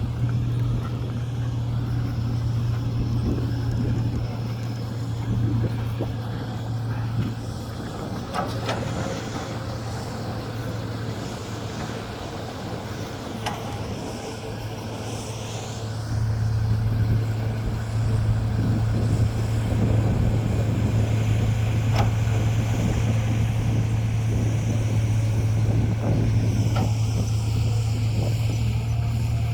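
Diesel engine of heavy earthmoving machinery running with a steady low drone that grows louder about halfway through, with a few sharp clanks along the way.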